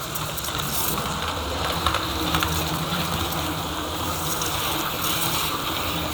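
HO-scale model train running along the track: a steady electric-motor hum and wheel rumble, with a few light clicks.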